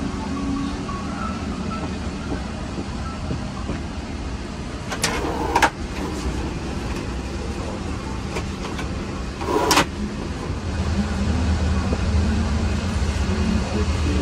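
Steady low drone of a Boeing 777-300ER's cabin air and ventilation, with a constant low hum that grows a little louder near the end. Two short, sharp clatters break in, one about five seconds in and one near ten seconds in.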